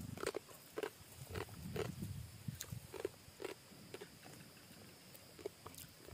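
Metal spoon stirring and tapping ice in a plastic cup of iced coffee: a string of light clinks, about two a second, with soft chewing sounds.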